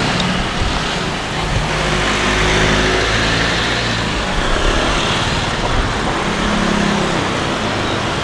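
Street traffic: motorcycles and cars driving past with their engines running, a steady mix of engine noise.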